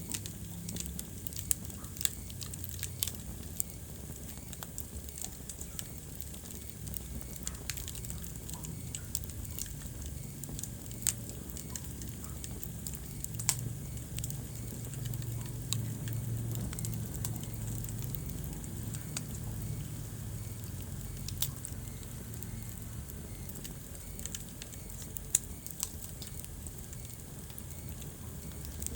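Wood fire burning in a fireplace, crackling with sharp pops scattered irregularly over a low, steady rumble of flame; a handful of pops stand out louder.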